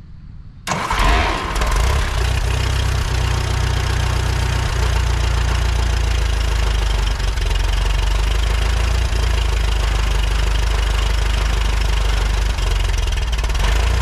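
A 1952 Case VAC tractor's four-cylinder gasoline engine starts up about a second in and settles into a steady idle. This is its first start after sitting for months, now with a new fuel sediment bowl, new fuel lines and a new ignition switch.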